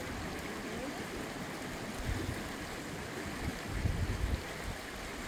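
Steady rush of flowing water, with wind buffeting the microphone in low rumbles about two seconds in and again around four seconds.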